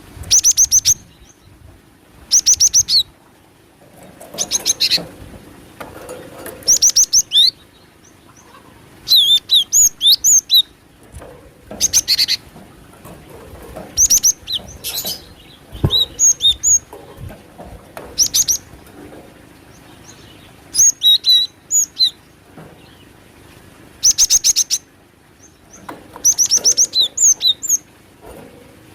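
Cinereous tit (gelatik batu) calls played as a lure recording that includes female calls: short, loud bursts of rapid, high chirping notes, repeated every second or two with brief gaps between.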